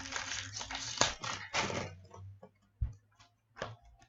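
Hockey trading cards handled in the hands: a rustling slide of cards against each other for about two seconds, then a few sharp flicks and taps as single cards are pulled off the stack.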